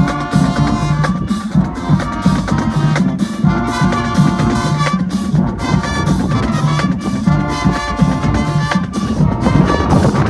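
High school marching band playing loud: the horns come in short phrases of a second or two with brief gaps, over steady drum strokes and a low sousaphone bass line that runs throughout.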